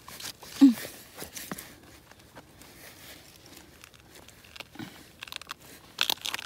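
Irregular crisp crunching and crackling, denser near the end. A short, low voice-like sound comes about half a second in, and a weaker one near five seconds.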